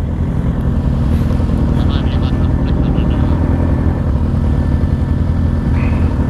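Suzuki SV650's V-twin engine running steadily at cruising speed, with wind rushing over the microphone.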